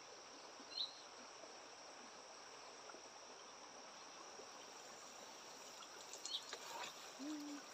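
Faint steady trill of insects, with a single short bird chirp about a second in. Near the end, water drips and splashes as a square lift net is hauled up out of the river.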